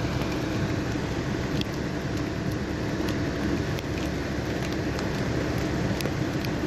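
Muddy floodwater rushing in a steady, even torrent, with a few scattered sharp ticks over it.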